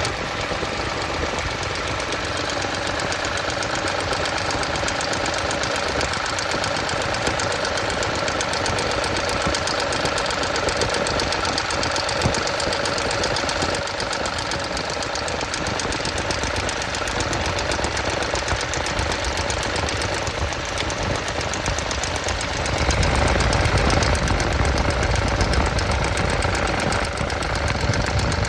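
2016 Toyota Tundra's 5.7-litre V8 engine running with a fast, even ticking clatter: a noise that persists after the drive belt, pulley and tensioner were replaced. The low rumble grows louder about three-quarters of the way in.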